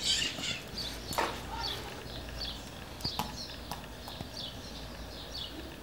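A bird calling in short, high chirps, about two a second, over a low steady hum, with a few sharp clicks.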